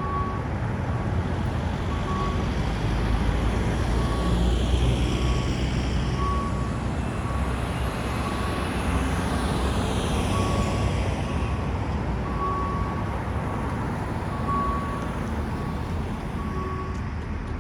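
SAR passenger train on the Dammam line running with a steady low rumble, while short high beeps repeat about once a second.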